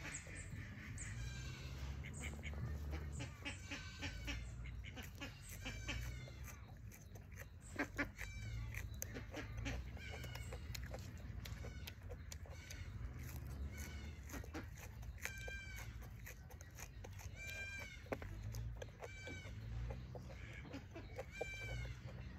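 Chickens calling in the background, short arched calls repeating every second or two, over the snaps and crunches of fresh leafy stems being stripped and chewed, with a pair of sharp snaps about eight seconds in.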